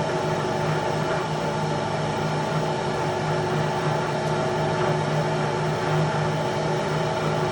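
A power tool's electric motor running steadily, a constant hum and whine with no change in speed.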